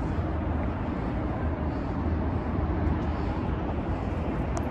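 Steady low rumble of city traffic, with no distinct events.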